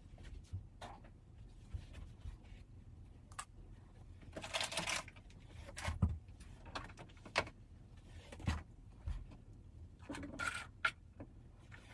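Faint clatter and rubbing of things being handled and wiped at a bathroom sink and counter: scattered small knocks and clicks, with a longer rustling scrape about four and a half seconds in and another near ten seconds.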